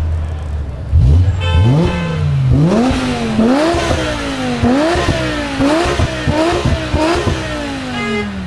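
BMW E60 M5's 5.0-litre S85 V10 through an Eisenmann exhaust, revved while standing still. It goes from idle into a series of quick rev blips, each rising and falling in pitch, then drops back toward idle near the end.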